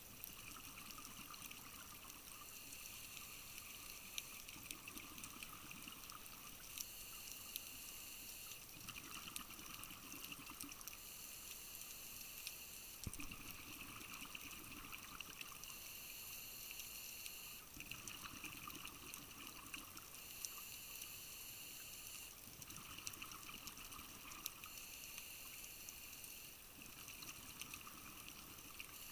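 Scuba breathing heard underwater through the camera housing: a regulator hiss and a low bubbling rush come back in turn every few seconds, with many faint scattered clicks.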